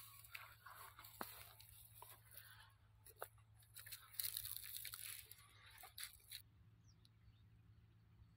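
Near silence, with faint scattered crackles and rustles of dry cotton plants and fallen leaves, the loudest a little after four seconds, over a low steady hum.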